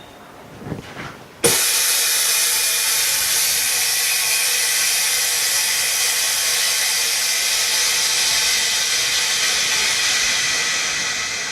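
Bubble remover (pressure-chamber autoclave for screen laminating) venting its compressed air: a loud, steady hiss that starts suddenly after a couple of small knocks and tapers off near the end, marking the end of the bubble-removal cycle.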